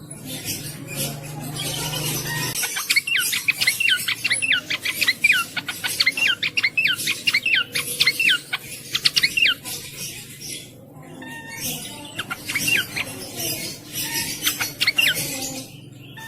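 Cingcoang (jongkangan) songbird singing a fast string of sharp whistled notes that each slide downward, several a second. A low hum in the first seconds stops as the song starts, and the song breaks off briefly about ten seconds in before it resumes.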